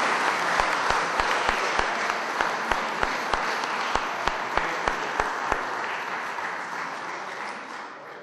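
Audience applauding, with a run of louder, evenly spaced claps close by at about three a second for the first five seconds; the applause dies away near the end.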